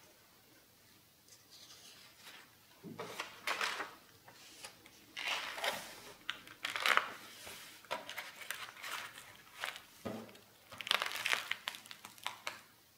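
Sketchbook paper pages being turned and handled: stiff, ink-covered sheets and loose scraps rustling and crinkling in several uneven bursts, starting about three seconds in, as the book is leafed to its end and closed.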